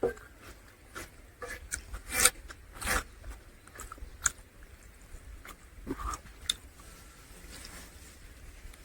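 A person eating at close range: chewing, lip-smacking and wet mouth clicks on a meal of curry and rice, in scattered short smacks.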